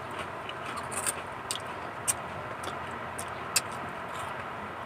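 Crunchy chewing of chicharon (fried pork rinds): short, crisp crackles about twice a second over a steady background hiss.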